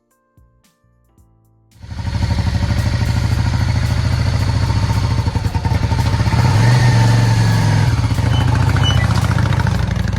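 Yamaha V-Star 650's air-cooled V-twin engine running. It comes in suddenly a couple of seconds in and revs briefly in the middle.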